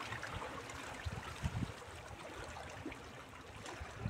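Small sea waves lapping and splashing against shoreline rocks, a steady wash with a few soft low slaps.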